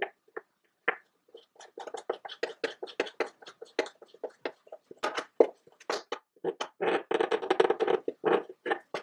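Hands working with parts: a fast, irregular run of clicks and knocks, crowding into a continuous scraping rub around seven to eight seconds in.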